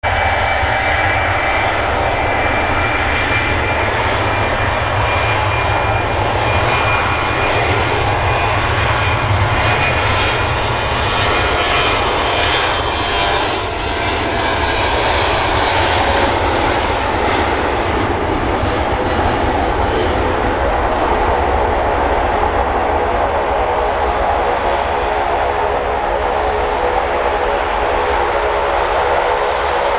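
Embraer E190 jet on its takeoff roll, its twin turbofans running at takeoff power: a loud, steady jet noise with a whine. The whine drops in pitch about halfway through as the aircraft passes.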